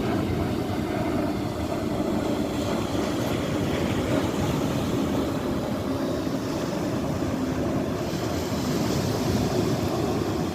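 Steady drone of a boat under way, with the wash of water and wind buffeting the microphone.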